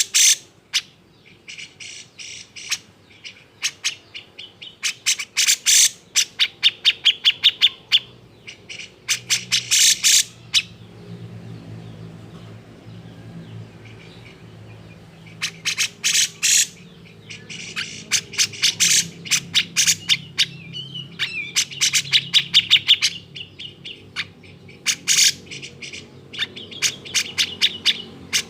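Grey-cheeked bulbul (cucak jenggot) giving a harsh, agitated chattering call: bursts of rapid, sharp notes one to two seconds long, repeated with short pauses.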